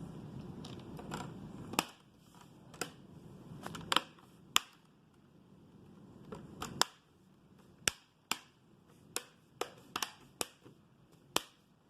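Plastic laptop screen bezel being pressed back on, its clips snapping into place one after another: a dozen or more sharp clicks at uneven intervals, some louder than others.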